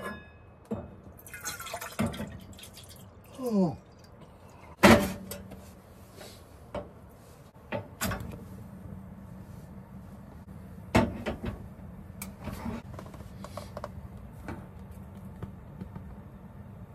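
A stainless steel pot knocking and clanking on a gas stove's grate, then the burner is lit about eight seconds in and runs with a steady low hiss, with a few more knocks after it.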